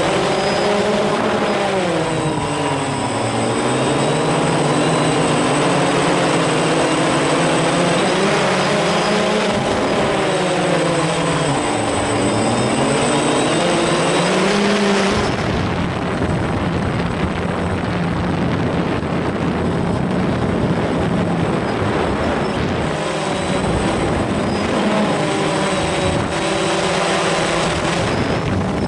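DJI Phantom quadcopter's motors and propellers running close to the microphone, a stack of tones that sinks and rises in pitch as the drone manoeuvres. About halfway in the tones fade under a steady rushing noise, then return faintly near the end.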